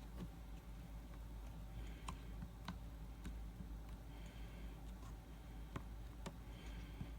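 A few light clicks at irregular intervals over a steady low hum.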